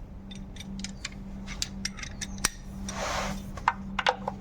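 Metal hand tools clinking and rattling as a 17 mm box spanner is searched for: a run of sharp irregular clinks, with a short scraping rustle about three seconds in, over a steady low hum.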